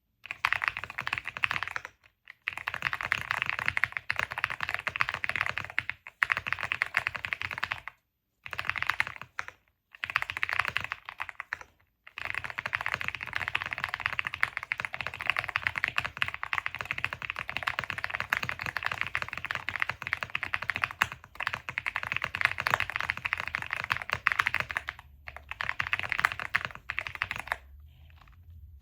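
Computer keyboard typed on at speed for a typing speed test: a fast, continuous clatter of keystrokes in long runs, broken by a few brief pauses.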